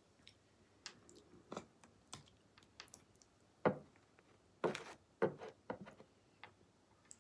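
Close-miked eating and food-handling noises: soft chewing and mouth smacks, with fingers picking up a piece of raw octopus sashimi from a platter. Scattered short clicks and taps, the sharpest a little under four seconds in and a cluster soon after.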